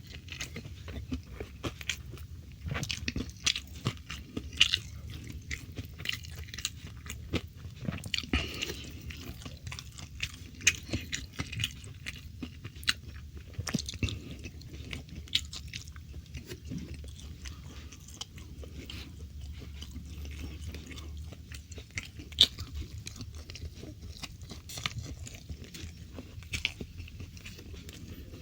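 Close-miked chewing and biting of food, with many short, irregular crunches and mouth smacks throughout.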